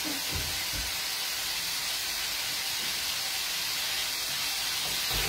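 King prawns and vegetables sizzling in a frying pan over a gas flame: a steady high hiss, with a couple of soft knocks near the start.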